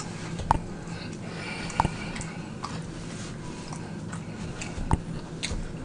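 A few soft, scattered mouth clicks and smacks from the last of the chewing, picked up close, over a steady low hum.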